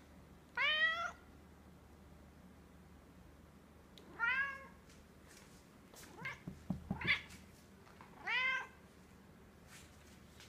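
Egyptian Mau cat meowing: four calls a few seconds apart, each arching up and then down in pitch, the third broken into a quick run of shorter calls with a few soft knocks.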